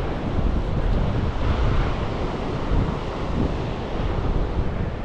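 Wind buffeting a head-mounted GoPro's microphone in a steady low rush, mixed with the wash of ocean surf breaking on the beach.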